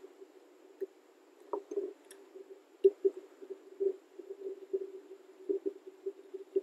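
Irregular muffled taps and a few sharper clicks from hands working metal parts at the flywheel pulley on top of an outboard powerhead.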